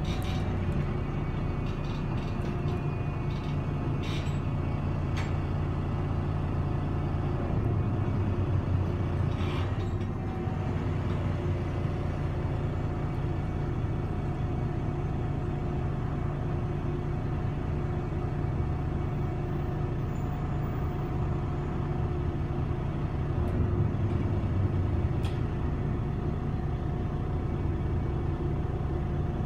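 Cabin sound of a MAN Lion's City city bus under way: a steady low engine drone with a thin whine above it, swelling slightly twice. A few sharp clicks and knocks from the bodywork come in the first ten seconds.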